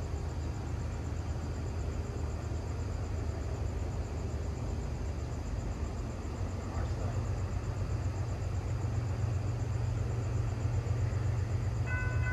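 Low, steady rumble of a distant CSX freight train led by GE ES44AC diesel locomotives, growing slowly louder as it approaches. Near the end a steady chord of several high tones comes in.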